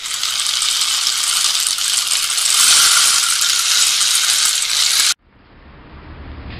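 Channel-intro sound effect: a steady, bright hiss for about five seconds, swelling slightly midway, then cutting off suddenly. Low background noise then fades in quietly.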